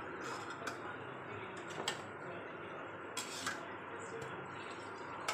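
Puris deep-frying in hot oil in an iron kadhai, a steady sizzle, with a few sharp clinks of a slotted steel spoon against the pan as a puri is turned and lifted out.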